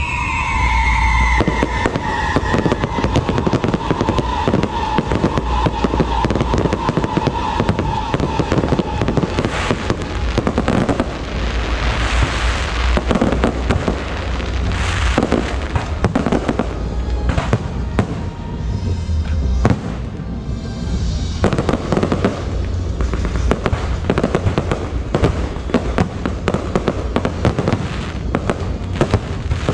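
An aerial fireworks display: a dense, continuous run of shell bursts, bangs and crackling from many shells and rising comets going off in quick succession.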